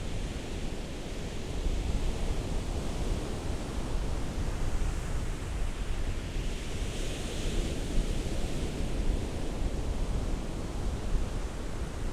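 Ocean surf: a steady low rush of waves, with a hissing wash of water that swells about seven seconds in and fades again.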